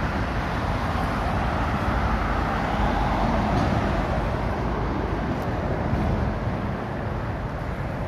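Steady road traffic from a busy roundabout junction, swelling a little over the middle few seconds.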